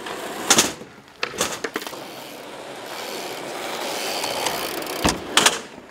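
BMX bike rolling over a concrete skatepark, with a rolling noise that builds up, and sharp metallic clacks and knocks as the bike hits the ramp, twice early on and twice near the end.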